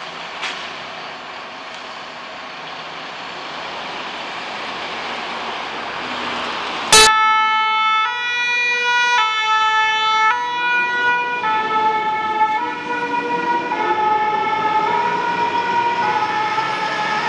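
Fire engines' engines running and growing louder, then about seven seconds in a sharp click and a French two-tone fire-engine siren ("pin-pon") starts, alternating between two pitches about once a second, its pitch sagging slightly later on as a truck drives past.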